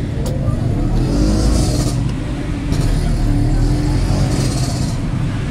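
Roadside traffic noise: a steady low engine rumble from passing vehicles, with three short bursts of high hiss.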